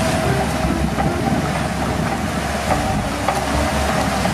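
Shantui crawler bulldozer running steadily under load as it pushes brush, its diesel engine rumbling with a faint clatter from the steel tracks.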